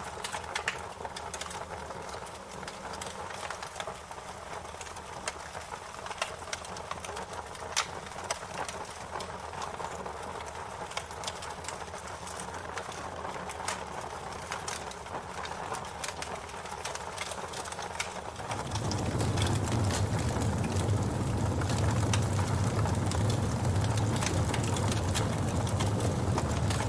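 Wood fire crackling, with many irregular sharp pops and snaps over a soft hiss. About two-thirds of the way in, a low rumble comes in and the fire sound gets louder.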